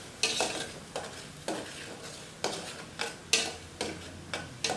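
A utensil stirring and scraping in a pot of simmering citrus cough remedy, making a series of irregular scraping strokes, roughly two a second.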